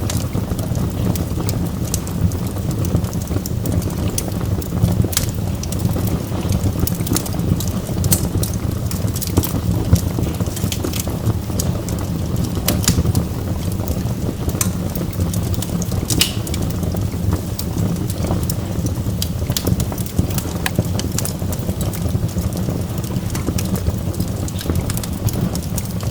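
Burning logs crackling: irregular sharp pops and snaps, several a second, over a steady low rumble of the fire.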